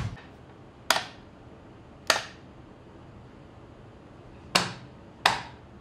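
Four sharp clacks from a clear plastic chocolate bar mold being knocked and worked to release the bars: one about a second in, one about two seconds in, and two close together near the end. The bars won't come out of the mold, a sign that the chocolate is out of temper.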